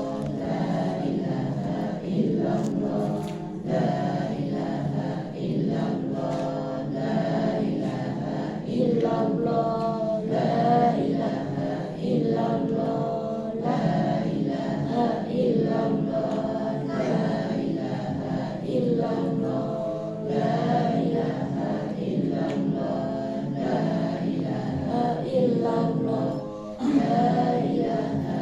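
Congregation chanting dhikr together: many voices in one continuous, wavering group chant.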